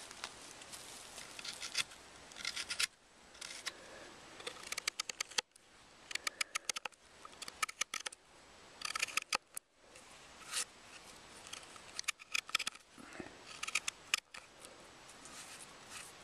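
Elbow adze hollowing the inside of a silver birch root bowl: short cutting strokes of the blade into the wood, coming in quick runs of crisp clicks with brief pauses between.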